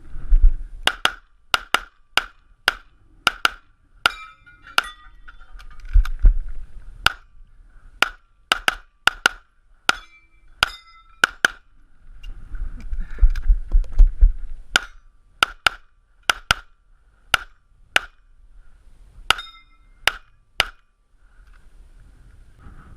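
A practical-shooting course of fire: about thirty gunshots in quick runs and pairs with short pauses between, several followed by a brief metallic ring of struck steel targets.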